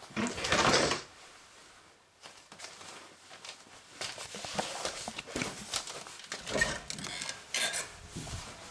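Handling noise: a loud rustle in the first second, a short lull, then irregular light knocks and taps as things are moved about.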